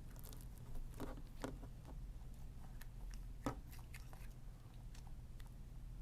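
Slime being squeezed and kneaded by hand, making scattered sticky clicks and small pops. The loudest come about a second in and again past the middle.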